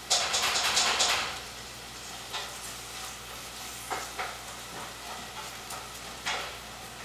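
Scratchy rustling and scuffling, loudest and most continuous for about the first second, then a few short scuffs: a Shih Tzu puppy scrabbling on a hardwood floor as it plays with a dangled ball-and-ribbon toy.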